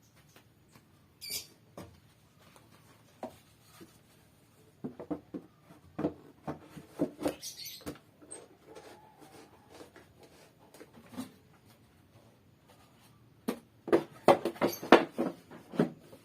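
Irregular light knocks and clicks, bunched into two busy clusters, one around the middle and one near the end, with no motor running.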